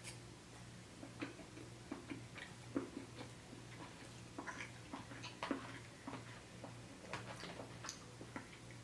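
Faint, irregular clicks and smacks of someone chewing food, over a low steady hum.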